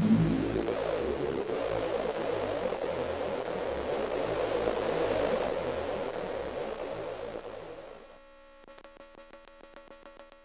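Experimental electronic drone-noise music: a dense, grainy noise texture with a steady high whine, slowly fading. About eight seconds in it gives way to a quieter chord of steady tones that stutters rapidly, several pulses a second, before cutting off.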